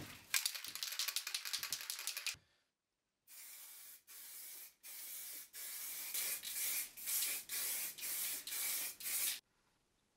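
Aerosol spray paint can hissing in a series of bursts, the later ones short and quick, as green paint is sprayed onto a board. It opens with about two seconds of fast rattling hiss, then a brief gap.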